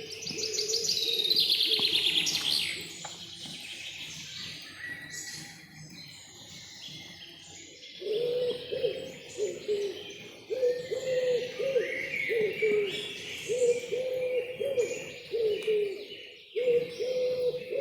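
Forest birdsong: several songbirds chirping and trilling, loudest in the first three seconds. From about eight seconds in, a low hooting call repeats in short notes beneath them.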